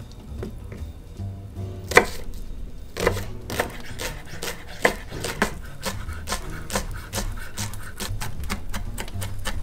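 Chef's knife chopping a shallot on a wooden cutting board: a few separate cuts, then quick steady chopping from about four seconds in. Background music plays underneath.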